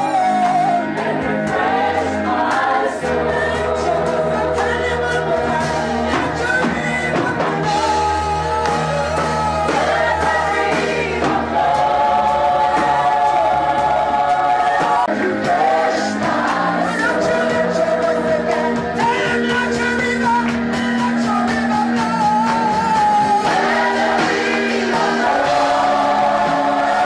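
Live gospel worship music: singers, with choir-like voices, over sustained instrumental chords, loud and continuous, recorded with poor sound quality.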